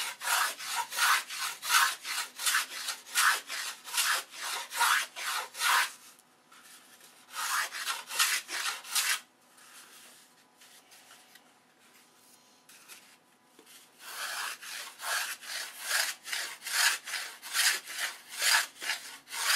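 Small hand plane shaving wood off a model wing's leading edge in quick short strokes, about three a second. The strokes break off for several seconds in the middle, then start again.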